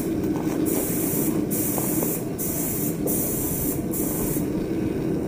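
Steady airy hiss over a constant low hum, the high hiss dipping briefly several times.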